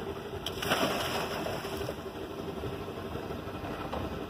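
A person jumping off a motorboat into the sea: one splash about half a second in that fades out over a second or so, over the steady running of the boat's engine.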